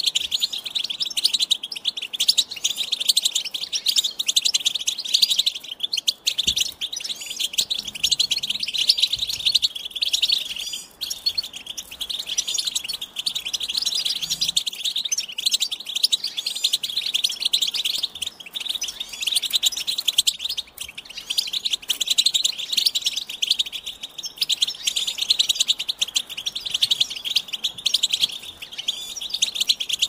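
European goldfinch singing a continuous, rapid twittering song, with a brief lull a little before the halfway point.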